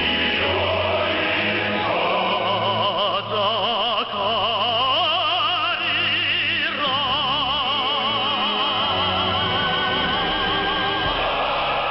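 Operatic-style vocal music with a melody sung with strong vibrato over a sustained accompaniment. It is received over a shortwave radio broadcast, so the sound is narrow and muffled, with the top end cut off.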